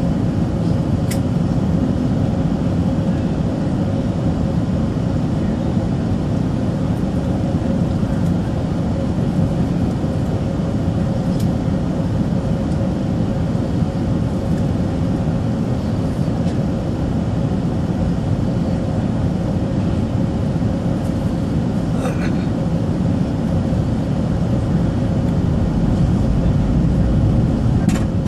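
Cabin noise inside an Airbus A380 on its approach to landing: a steady low rumble with a faint steady hum held throughout, and a few faint clicks.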